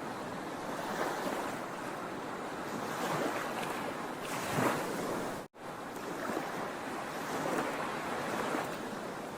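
Sea waves washing onto a shore: a continuous surf hiss that swells and eases as each wave comes in. The sound cuts out completely for an instant about five and a half seconds in.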